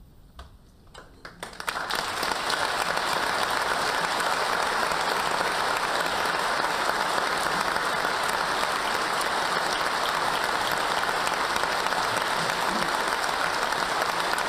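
Studio audience applause: a few scattered claps at first, then about two seconds in the whole audience breaks into sustained, steady clapping.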